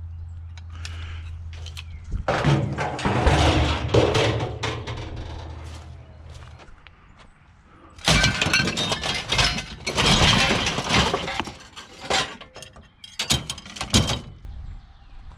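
Loose scrap metal clattering and crashing in two long bursts, as if dumped or tossed onto a pile, followed by a few separate clanks near the end. A low steady hum sits underneath and stops about halfway.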